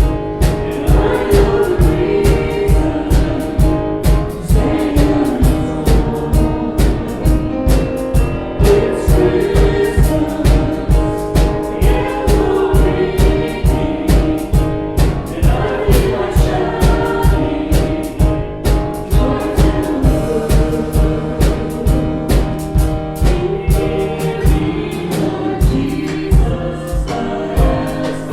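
Gospel music: a choir singing over a steady, driving beat.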